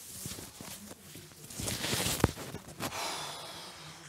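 Bedding and a pillow rustling as a man settles down onto a floor mattress, with small knocks and one sharp knock a little past two seconds in.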